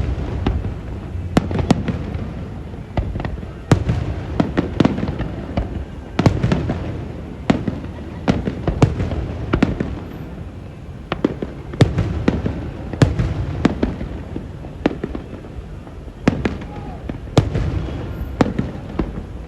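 Fireworks display: a rapid, irregular series of sharp bangs and booms, often several close together, over a steady low rumble.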